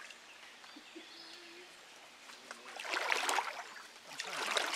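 Creek water splashing and sloshing as hands work in the shallows under tree roots, in two loud bursts about two and a half and four seconds in, over a faint trickle of the stream.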